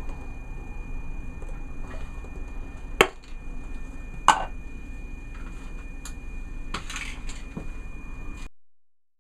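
Two sharp clinks of hard objects striking, a second and a bit apart, with a few fainter taps, over a steady low hum and a thin high whine. The sound cuts off abruptly near the end.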